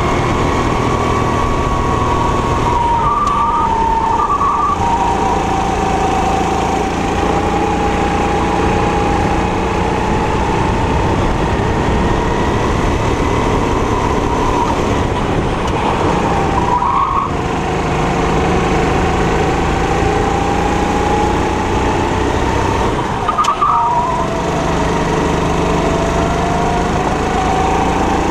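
A 270 cc four-stroke kart engine running hard on a lap. Its note slowly falls and rises as the kart slows and speeds up. Three times it briefly dips or breaks off as the throttle is lifted for a corner.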